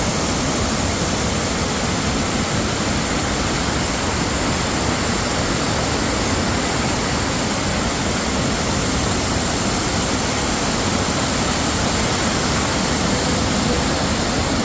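Steady rushing roar of a waterfall, an even unbroken wash of falling water.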